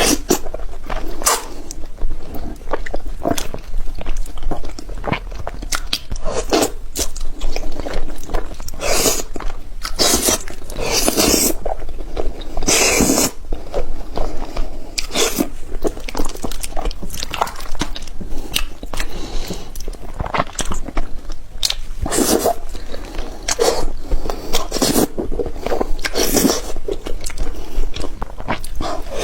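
Close-miked eating of spicy seafood: continuous biting, crunching and chewing, with dense, irregular crackly mouth sounds and louder crunchy stretches about a third of the way in and again near the end.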